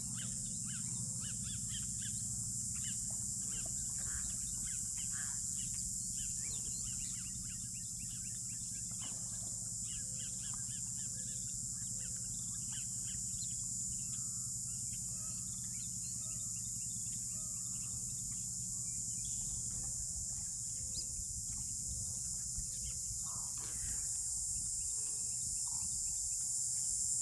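Many birds calling and chirping at the lakeshore, short scattered calls over a steady high hiss and a low rumble.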